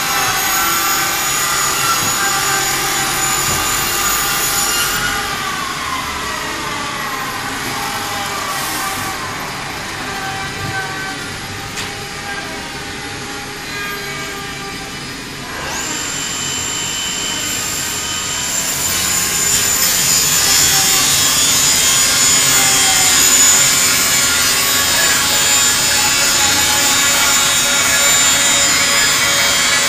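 Door-sizing machine running, its electric saw motors whining in several steady tones as the saw heads trim a wooden door panel. About five seconds in one tone slides down in pitch. Near sixteen seconds a high whine starts and the sound grows louder.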